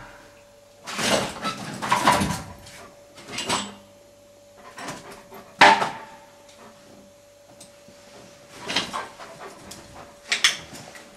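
Explosive-detection dog searching among stored mops, brooms and pipes: short bursts of sniffing and shuffling, and one sharp knock a little past halfway.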